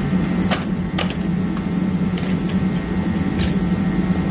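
Space heater running with a steady hum. A few light clicks and taps are heard over it.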